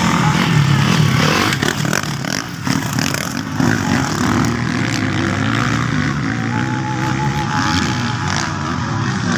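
Motocross motorcycles racing, engines running hard and revving, rising and falling in pitch.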